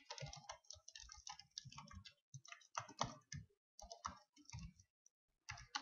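Quiet typing on a computer keyboard: quick, irregular key clicks in short runs with brief pauses.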